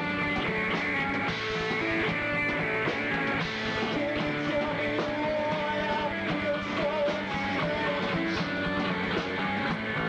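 A rock band playing live: distorted electric guitar over bass and drums, without a break.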